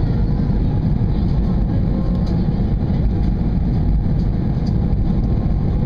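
Airbus airliner cabin noise during the approach: a steady, low rumble of engines and rushing air, heard inside the cabin at a window seat.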